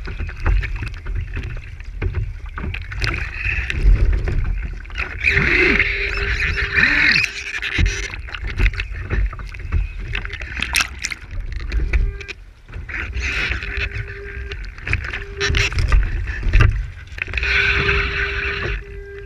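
Water splashing and rushing along the hull of a one-metre radio-controlled racing yacht under sail, heard from a camera on its deck, with wind buffeting the microphone. A thin whine comes and goes several times, and the splashing rises into a louder hiss twice.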